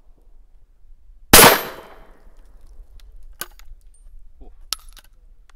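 A single shotgun blast from a Savage Stevens 94 single-shot break-action shotgun with a cut-down barrel, firing a birdshot shell about a second in, with a short echo tail. Two sharp metallic clicks follow as the action is opened and the spent shell is handled.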